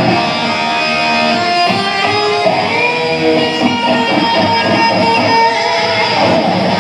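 Live band playing, with electric guitar strumming out front.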